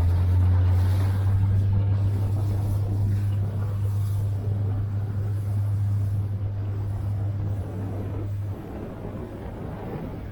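Yamaha SRX motorboat's engine running steadily under way, a low drone with water and wind rushing past the hull. The drone drops somewhat in level about eight and a half seconds in.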